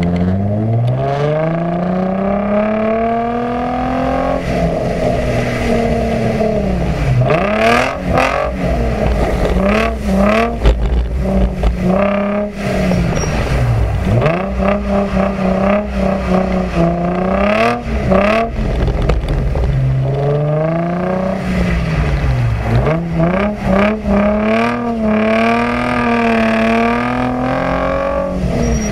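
Nissan 350Z's VQ35DE 3.5-litre V6 exhaust heard at the tailpipe, the engine repeatedly revving up and falling back. The engine has just had its valve stem seals replaced and no longer smokes.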